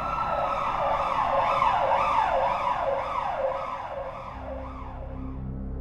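Emergency vehicle siren: a rising wail that switches to a fast yelp of about two sweeps a second, then fades out about four seconds in. A low hum comes in near the end.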